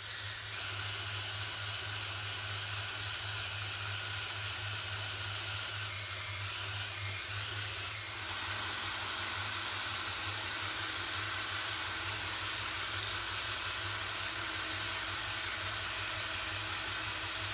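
Oil pump of a rebuilt 426 Hemi being turned by a drill-driven primer to pre-lube the engine, a steady hiss over a low hum, holding about 75 psi of oil pressure. It gets slightly louder about eight seconds in.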